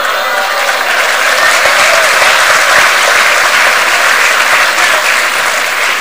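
A large audience applauding, the clapping swelling over the first couple of seconds and tapering off near the end.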